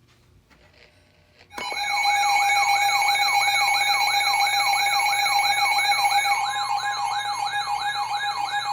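Electronic siren-like alert tone starting suddenly about a second and a half in: a pitch sweeping upward over and over, about four sweeps a second, over steady held tones. It announces an emergency alert broadcast, here a severe thunderstorm warning.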